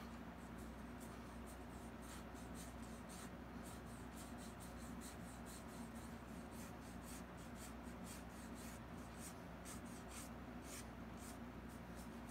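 Paintbrush bristles scratching across a canvas in quick, short strokes, a few a second and irregular, as strands of hair are painted in. A faint low steady hum lies underneath.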